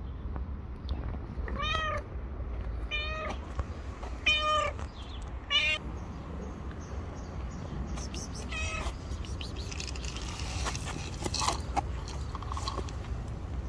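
A tabby-and-white cat meowing five times, short rising-and-falling meows about a second apart with a longer gap before the last; near the end, a scatter of clicks and rustles.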